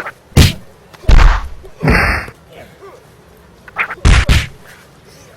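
A series of loud whacks and thuds, added punch-and-kick sound effects for a mock fight: about five hits, the last two in quick succession.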